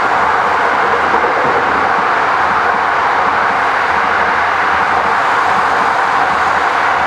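Freight train passing: steady, loud rolling noise of wagon wheels on the rails, even and unbroken, without a distinct clickety-clack beat.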